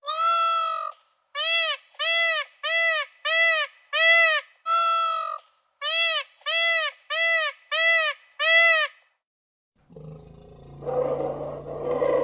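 A bird honking in a fast, even series of pitched calls, each rising and falling, about two a second. A longer call opens each of the two runs, and the calls stop near the end.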